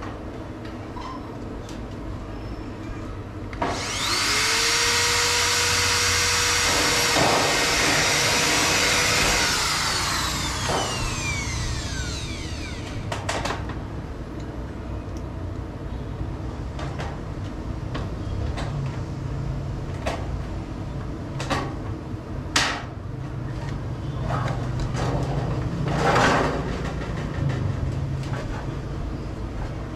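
A power tool runs for about eight seconds, starting about four seconds in, then winds down with a falling pitch; after it come scattered knocks and clicks of hand work.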